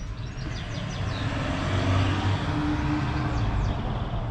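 A motor vehicle passing on the street, its low engine hum swelling to its loudest about two seconds in, with short high chirps over it.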